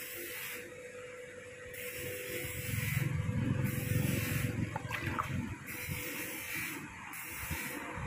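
Wading through shallow floodwater, the water splashing and sloshing in irregular surges.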